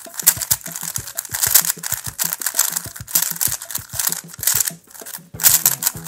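Rapid, irregular plastic clicking and clacking of a YJ Yulong V2 3x3 speed cube as its layers are turned quickly by hand. Background music with steady tones comes in near the end.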